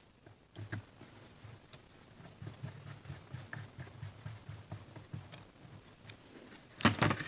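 Screwdriver working a small screw on a small motorcycle carburetor, with faint metal clicks and soft handling knocks as the carb body is held and turned, then a louder clatter near the end.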